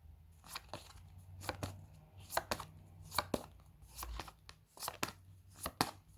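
A pack of paper flashcards being flipped through one card at a time, a sharp flick or snap about every 0.8 s, often in quick pairs.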